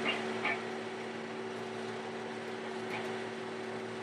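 John Deere combine running steadily while shelling corn, heard from inside the cab: a constant hum carrying two steady tones under an even wash of machine noise.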